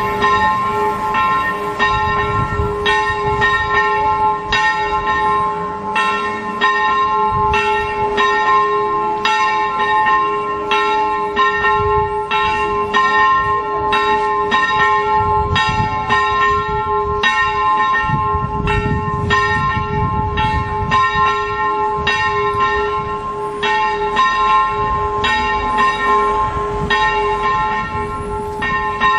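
Church bells ringing a continuous rapid peal, about two strokes a second, the same few notes sounding over and over, with a low rumble underneath.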